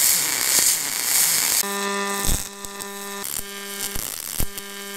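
Aluminum MIG welding arc from a YesWelder Firstess DP200 pulse welder. It starts as a hissing crackle. About one and a half seconds in it turns to a steady buzz that drops out and comes back every half second or so, with sharp pops in the gaps.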